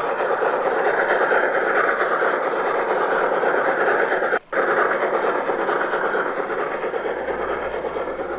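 G-scale model steam locomotive hauling a train of open freight wagons along garden railway track, making a steady running noise. The sound drops out for a moment about halfway through.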